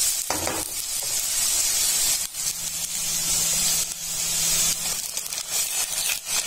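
Chopped onions, green chillies and cumin sizzling steadily in hot oil in a non-stick kadai as they fry towards golden brown, with a spatula stirring them and a few short knocks.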